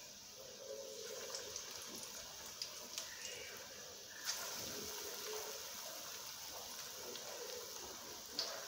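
Gram-flour pakora batter deep-frying in hot mustard oil in a kadhai: a steady sizzle with occasional small pops, getting louder about four seconds in as fresh batter is dropped into the oil.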